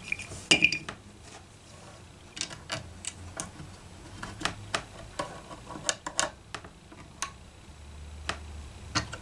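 Metal bass strings being handled and wound onto the tuner posts of a Fender Precision Bass: an irregular series of sharp clicks and metallic ticks as the string end and tuners are worked by hand. A low steady hum comes in near the end.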